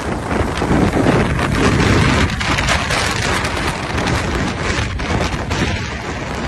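Typhoon winds driving heavy rain across a street. The wind gusts and rumbles on the microphone and is heaviest about one to two seconds in.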